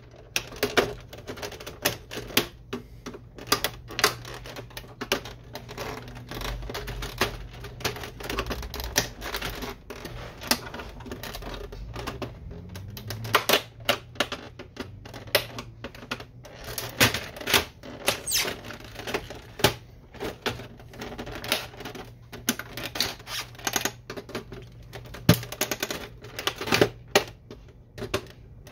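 Plastic clicks, knocks and snaps from a Canon Pixma MG6820 printer's housing as its clips are pried with a screwdriver and the front panel is worked loose by hand. The clicks come irregularly and densely throughout.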